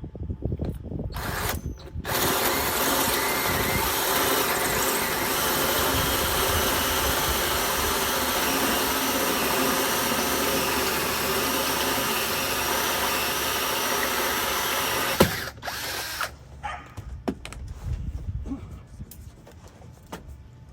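Electric drill driving a hole saw through the boat's hull, about an inch thick: a steady cutting noise with a motor whine starting about two seconds in and running for about thirteen seconds. It stops suddenly with a click, followed by a few light knocks and handling sounds.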